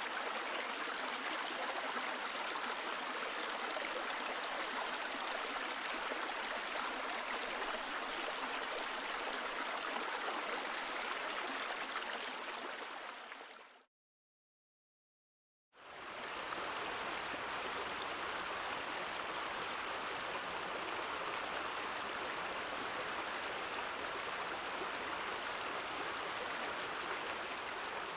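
Flowing stream water babbling steadily. It fades out about 14 seconds in, there is a short silence of under two seconds, and a second stretch of running stream fades in.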